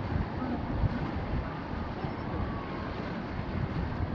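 Wind buffeting the microphone over a steady rushing noise, with no firework bursts. Faint distant voices come through about two seconds in.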